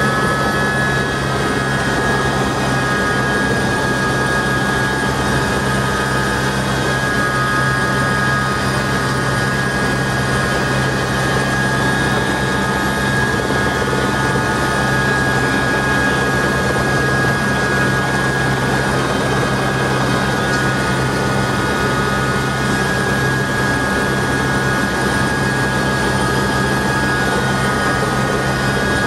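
Helicopter running steadily, the engine and rotor noise holding constant with a steady high whine over a low hum.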